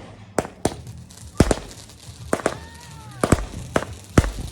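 Fireworks going off: about ten sharp bangs at irregular intervals, several in quick pairs, with a short whistling glide in the middle.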